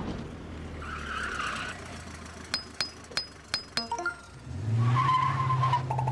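Animated logo sound effects: steady rain, then a quick run of sharp metallic clinks about halfway through. A vehicle engine then runs up loudly, with a short squeal and a rapid rattle near the end.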